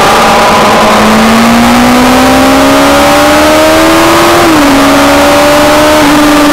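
Sport motorcycle engine accelerating hard, its pitch rising steadily for a few seconds, then dropping a step at an upshift about four and a half seconds in and easing off slowly near the end, over heavy wind rush.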